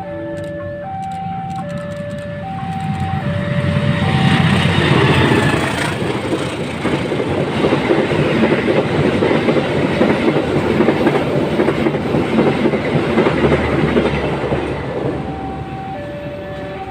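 Level-crossing alarm sounding two alternating tones, then a train passes close by, its wheels clattering over the rail joints, loud for about ten seconds and drowning out the alarm. As the train clears near the end, the two-tone alarm is heard again.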